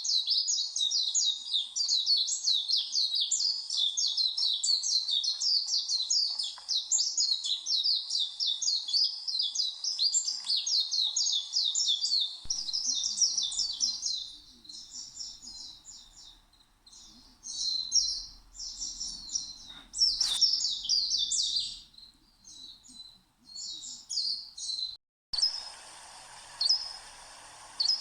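Small birds calling: a dense, rapid chorus of high chirps that thins out after about 14 seconds into scattered calls. At about 25 seconds a different recording begins, with a single short chirp repeated every second or so over a faint hiss.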